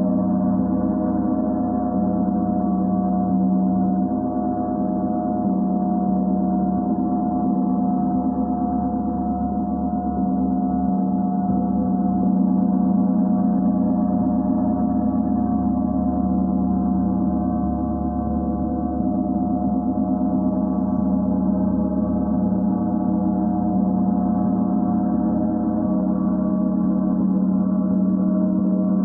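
Symphonic gong played continuously with two padded mallets: a steady, dense wash of many overlapping ringing tones at an even loudness, with no single strike standing out.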